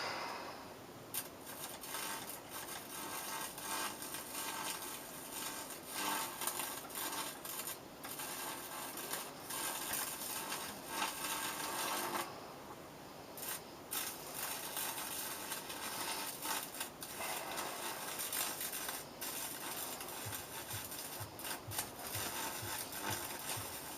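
High-voltage arc from a ballasted microwave oven transformer crackling and buzzing as it is drawn across an aluminium hard drive platter. It is a raspy, sputtering noise that drops out briefly about halfway through.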